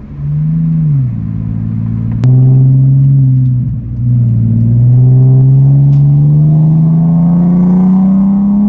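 BMW E46 engine running through catless headers, a Vibrant Ultra Quiet resonator and a 4-inch single-exit Greddy muffler while driving. A short rev and drop in the first second or so is followed by a jump in throttle about two seconds in and a brief dip near four seconds, like a gear change. After that comes a long steady pull, the engine note rising as the car accelerates.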